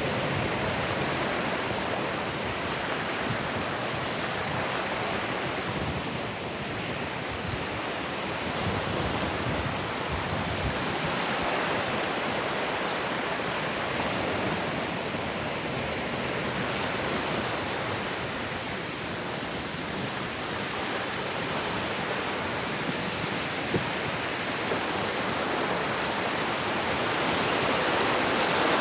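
Ocean surf washing onto a sandy beach: a steady hiss of small waves that swells and eases a few times, loudest near the end.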